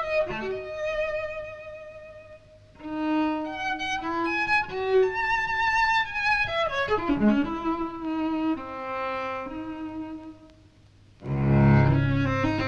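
Solo cello bowed in long singing notes with vibrato, high on the instrument, in phrases that fall away twice. Near the end a loud, deep note comes in.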